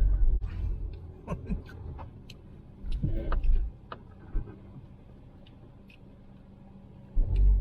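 Car driving over a rough, potholed dirt road: three bouts of heavy low rumble as it jolts over the bumps, with scattered small rattles and clicks, and a brief murmur of voice.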